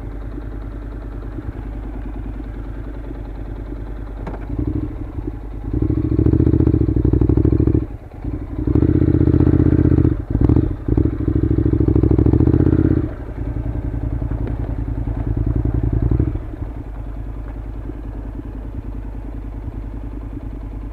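Honda NC700's parallel-twin engine running at low speed, with louder bursts of throttle from about five to thirteen seconds in, broken by short drops, then easing back to a steady low running.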